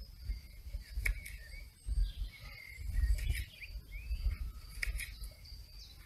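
Outdoor ambience of small birds chirping in short, gliding calls over a low wind rumble on the microphone that comes and goes. A couple of light taps sound, about a second in and again near the end.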